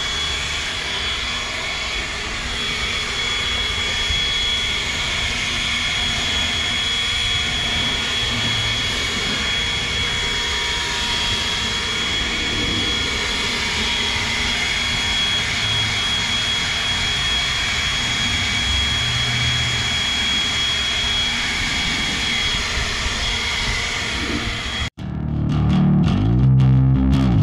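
Leaf blower running steadily with a constant high whine as it blows rinse water off a wet car's paint. About 25 seconds in it cuts off abruptly and guitar music begins.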